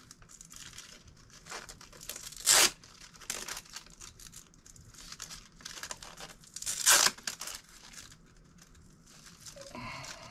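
Packaging being torn open and crinkled by hand: a run of crackling rustles, with two loud rips about two and a half and seven seconds in.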